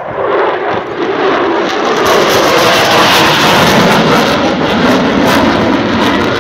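F-16 fighter jet flying past, the noise of its single jet engine swelling to a peak in the middle and easing off, with a tone that falls in pitch as it passes.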